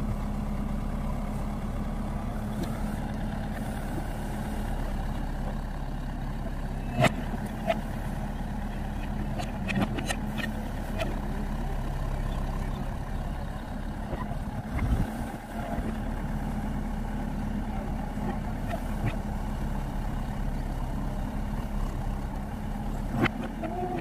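JCB 3DX backhoe loader's diesel engine running steadily as the rear backhoe digs soil, with a few sharp knocks now and then from the working arm and bucket.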